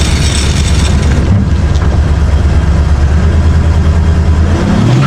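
Ford F-150 truck engine running hard under load as the truck pulls against a bundle of 20 zip ties. The pitch rises as it revs up near the end.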